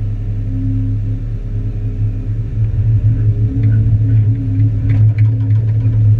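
Excavator engine running with a steady low hum, with faint knocks and clicks in the second half.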